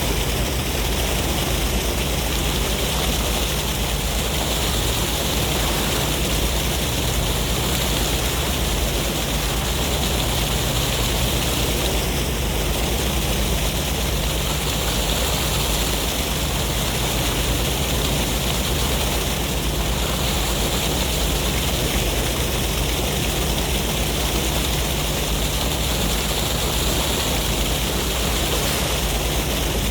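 Sea waves and wind making a steady, even rushing noise without clear rises or breaks.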